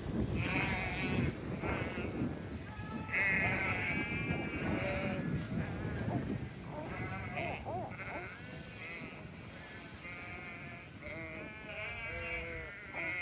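A flock of sheep bleating, many calls overlapping one another, over a low rumble.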